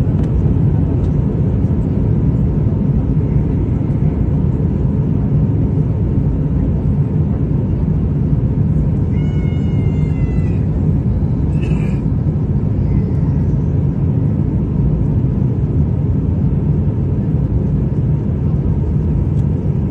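Steady in-cabin noise of an Airbus A350-900 in flight: the Rolls-Royce Trent XWB engines and the airflow make a loud, even low rumble, heard from a window seat over the wing. About halfway through comes a brief high-pitched, slightly falling cry.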